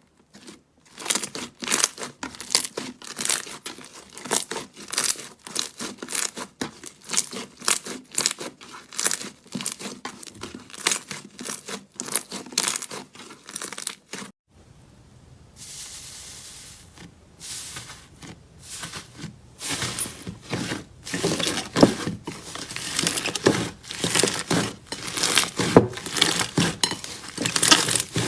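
Slime being squeezed and stretched by hand, giving a rapid run of sticky crackles and tearing pops. Partway through there is a short break, and then the crackling resumes, denser and louder near the end.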